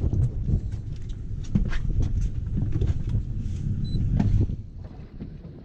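Wind rumbling on the microphone, with scattered small knocks and clicks of handling on the boat; the rumble eases off near the end.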